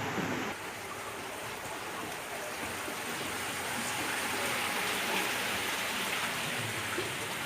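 Steady rush of running water, swelling slightly in the middle.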